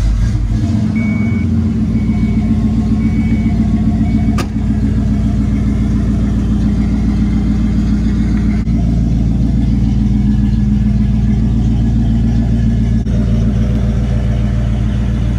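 1995 Ford Bronco's engine firing up after sitting for about a week, then settling into a steady idle. There is a single sharp click about four and a half seconds in.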